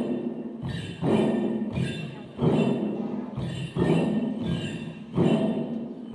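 Several chyabrung, the Limbu double-headed barrel drums, beaten together in a steady rhythm, a heavy stroke about every one and a half seconds, each booming and fading before the next.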